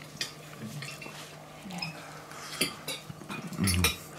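Cutlery clicking and clinking against a plate, with close-up chewing while food is tasted. A brief low mouth sound, an appreciative "mm", comes near the end.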